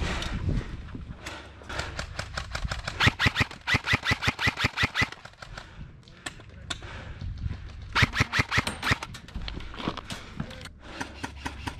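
Airsoft rifles firing rapid full-auto bursts: a long burst of sharp cracks in the first half, a shorter burst about eight seconds in, then scattered single shots near the end.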